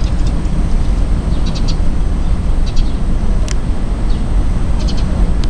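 Steady low outdoor rumble with small birds chirping in short high clusters every second or so. A single sharp click comes about three and a half seconds in.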